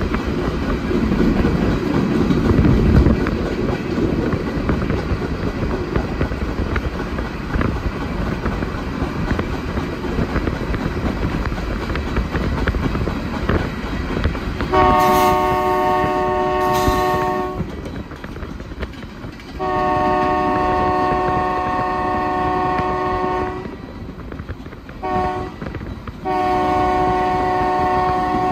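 A diesel freight locomotive rumbling along with wheels running on the rails, then its multi-chime air horn sounding the grade-crossing signal: two long blasts, a short toot or two, and a long blast held near the end as the train reaches the crossing.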